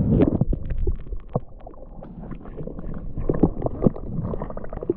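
Muffled water sloshing and gurgling around a camera's microphone held in the river, with many irregular knocks and bumps from handling.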